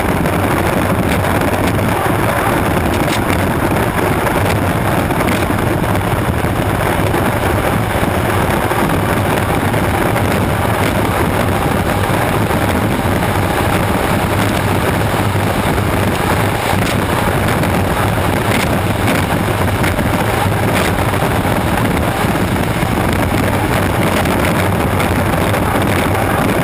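Unlimited hydroplane's turbine engine running steadily at race speed, heard from an onboard camera mounted just behind its exhaust stack, mixed with wind and spray buffeting the microphone.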